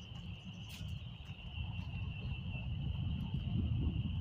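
Outdoor ambience: a steady high-pitched insect trill over a low rumble that grows louder toward the end, with a few faint clicks.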